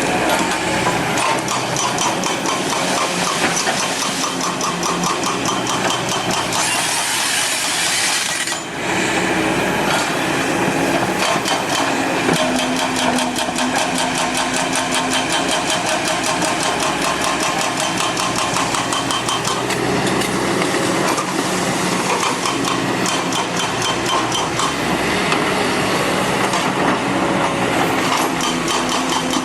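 Hydraulic excavator working: its diesel engine running under load, its pitch shifting, with continuous metallic rattling and clanking. About seven seconds in, a brief hissing rush lasts a second or so.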